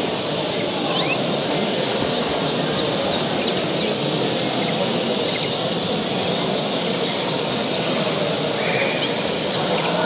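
Canaries chirping and trilling in rapid series of short, high, falling notes from about two seconds in, over a steady, dense background din.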